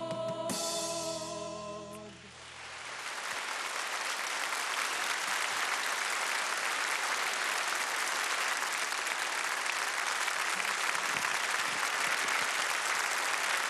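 Music ends on a held final chord, and audience applause rises about two seconds in and continues steadily.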